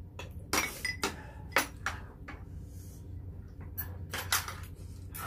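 Metal spoons and chopsticks clinking and scraping against soup pots and bowls while eating galbitang: a string of sharp, irregular clinks, the loudest about a second and a half in, over a low steady hum.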